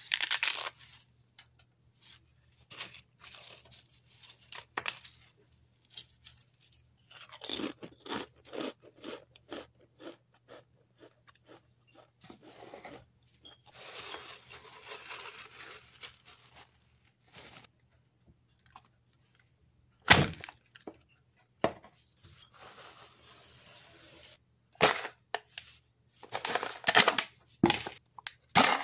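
A thin Pringles potato chip crunching and crackling as gloved fingers crush it, followed by scattered small handling clicks and the rustle of a paper towel. About twenty seconds in comes one sharp knock, and near the end a stretch of crackling as foil is worked at a can's rim.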